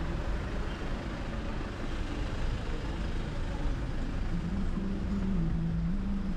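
Road traffic on a city street: vehicle engines running close by, with a steady low rumble. About four seconds in, a low tune of held notes stepping in pitch begins over it.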